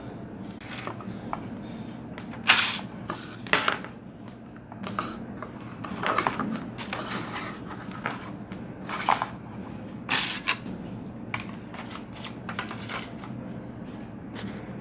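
Handling noise from a small plastic USB hub being turned over in the hands: irregular sharp clicks and knocks, the loudest about two and a half and three and a half seconds in, with a few more around six, nine and ten seconds. A steady low hum runs underneath.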